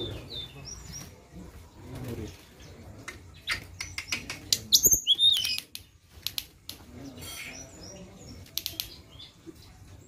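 Blue flycatcher (tledekan) calling: short chirps and clicks, with a louder burst of high, falling whistled notes about five seconds in. Wing flutters are heard among the calls.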